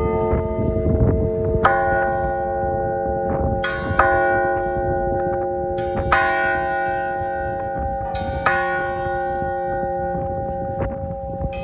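Large bronze bell struck with a wooden mallet four times, about every two seconds. Each stroke is a sharp clang followed by long ringing in several steady tones, which carries on under the next stroke.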